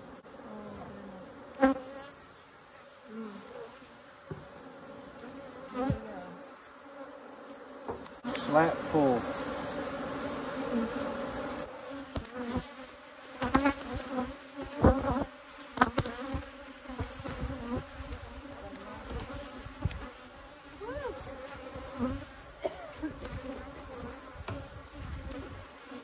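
Honeybees buzzing around an opened hive, a steady hum with the pitch sliding up and down as single bees fly close past. Several sharp knocks and clicks, the loudest a cluster around the middle, come from working the hive.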